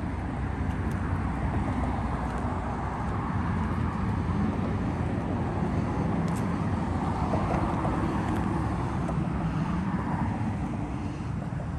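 Mercedes 380SL's 5.0-litre V8 idling steadily.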